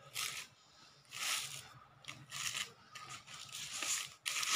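Rustling and rubbing of a light brasso saree's fabric as it is unfolded and spread by hand, in several short bursts.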